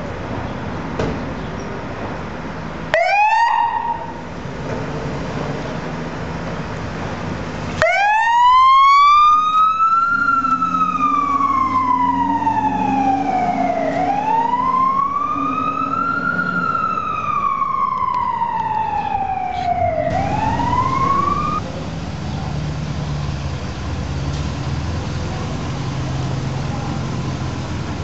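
Fire engine siren: a brief rising whoop, then a slow wail that rises and falls twice and cuts off partway up a third rise. The truck's engine rumble continues underneath.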